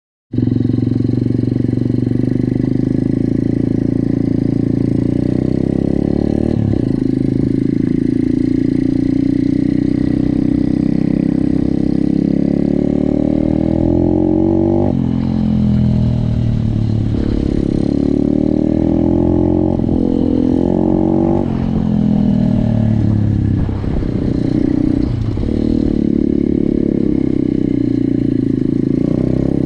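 SSR 125 pit bike's small single-cylinder four-stroke engine running hard on a hill climb. It holds a steady pitch at first, then through the middle the revs rise and drop sharply several times before steadying again near the end.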